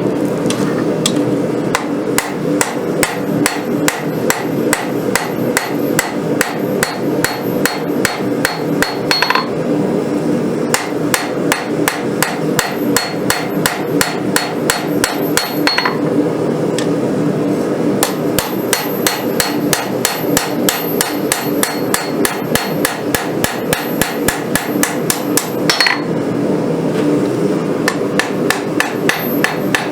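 Hand hammer beating hot steel on an anvil: rapid, regular blows, a few a second, each with a high ring, over a steady low roar. This is a railroad rail spring clip being forged into a wakizashi blade, its bevels and profile drawn out.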